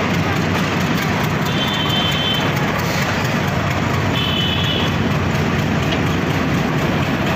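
Diesel-electric locomotive engine running steadily as the BED-30 moves slowly away through the yard. Two brief high-pitched tones sound over it, about a second and a half in and again about four seconds in.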